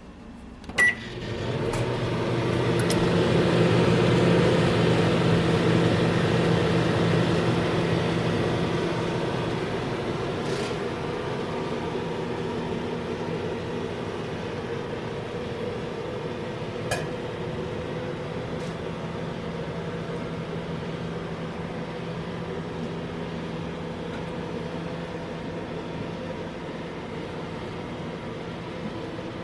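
Microwave oven started with a sharp click about a second in, then running with a steady electrical hum.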